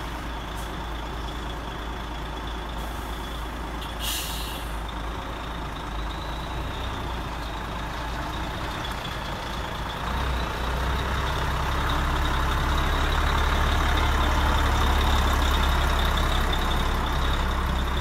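Radio-controlled model truck running: a steady low engine rumble with a thin high whine over it, and a short hiss about four seconds in. It grows louder from about ten seconds in.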